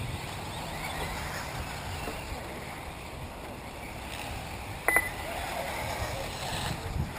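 1/8-scale electric RC off-road buggies running on a dirt track: a faint whine of electric motors that rises and falls over a steady rushing noise. A sharp click with a brief high beep about five seconds in.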